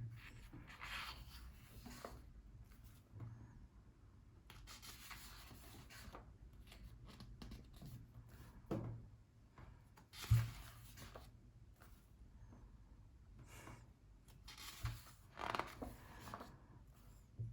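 Pages of a cookbook being turned by hand: faint paper swishes every few seconds, with a few soft thumps as the book is handled.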